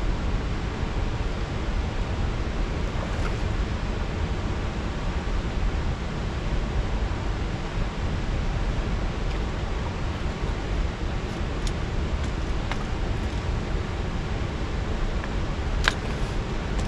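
Steady wind noise on the microphone with water noise under it, heaviest in the low end; a single click near the end.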